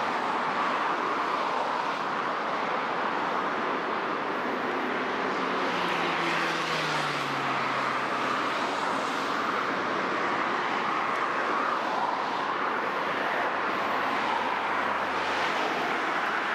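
Road traffic on the overpass: steady tyre and engine noise, with one vehicle's engine note falling in pitch as it passes, about five to nine seconds in.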